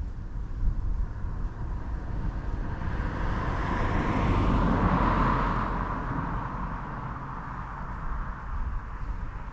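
A vehicle passing by out of sight: a smooth swell of noise that rises, peaks about five seconds in and fades away, over a steady low wind rumble on the microphone.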